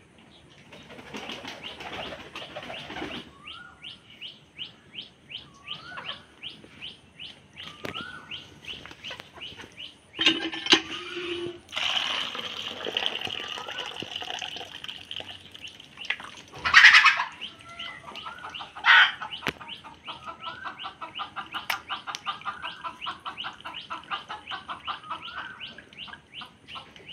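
Small birds chirping rapidly and steadily, with short rising calls every couple of seconds. Several loud bursts of wing flapping from the feeding pigeons come through, the loudest about 17 seconds in.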